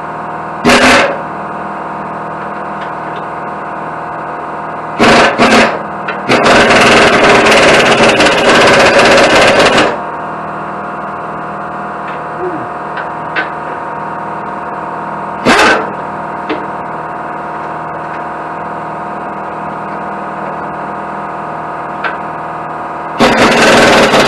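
Wire-feed welder arc crackling in bursts as tack welds are laid: a short burst about a second in, two more around five seconds, a longer run of about four seconds, another short one in the middle, and a long one starting near the end. A steady machine hum runs underneath.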